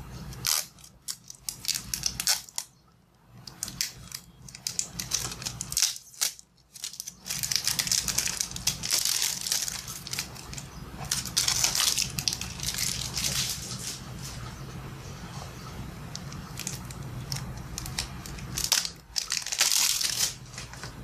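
Cellophane wrapper on a Bicycle playing-card box crinkling and tearing as it is peeled off and handled, in bursts of crackling with short pauses between.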